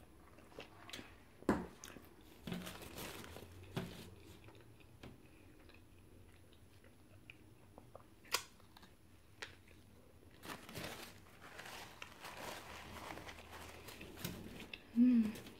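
A person chewing and biting into a McDonald's sandwich, with scattered soft crunches, clicks and crinkling of its paper wrapper, and a short hum of voice near the end.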